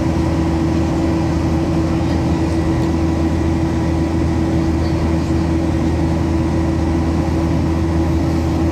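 Steady cabin drone of a Boeing 737-800 in flight, heard from inside the passenger cabin: the CFM56 engines and airflow make an even rushing noise with a constant low hum running through it.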